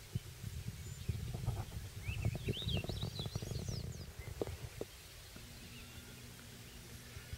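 Low rumbling with scattered knocks, and a small bird twittering in quick rising and falling notes about two to four seconds in; the rumble then drops away and a faint steady hum remains.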